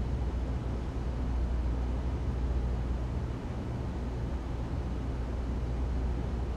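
Ventilation system running: a steady whooshing air noise over a deep, constant low rumble with a faint hum, unchanging throughout.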